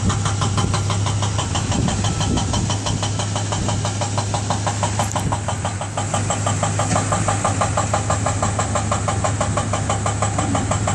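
Small crawler bulldozer's diesel engine running steadily with a rapid, even clatter over a low hum.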